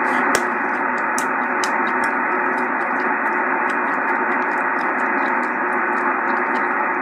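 Steady hiss of band noise from a 6-meter amateur radio receiver's speaker, heard between transmissions while the operator listens for a reply. There is a sharp click about a third of a second in.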